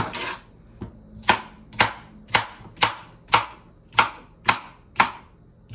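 A kitchen knife chopping a cucumber on a cutting board: about ten sharp, evenly paced chops, roughly two a second.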